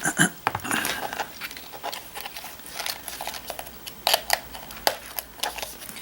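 Small sharp metallic clinks and handling noises, scattered and irregular, from a sporran with a metal chain and fittings being handled.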